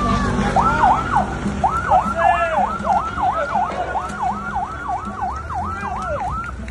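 Siren sounding in a fast yelp, its pitch sweeping down and back up about twice a second, stopping just before the end.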